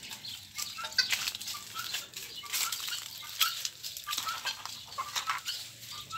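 Free-range chickens clucking in short, soft calls over irregular rustling and crackling of footsteps on dry leaf litter.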